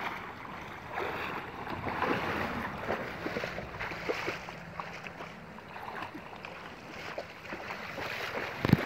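River water splashing and sloshing as people move through it, with many small irregular splashes and a sharp thump near the end.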